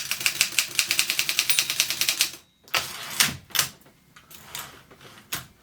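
Wartime Continental manual typewriter, freshly cleaned and oiled, typing: a fast, even run of keystrokes, about ten a second, that stops about two and a half seconds in, followed by a few separate clacks.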